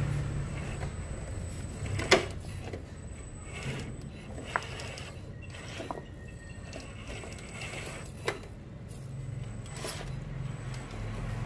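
Radio-controlled Toyota FJ Cruiser model truck driving: a low motor and gear hum that fades and builds again, with a few sharp knocks, the loudest about two seconds in.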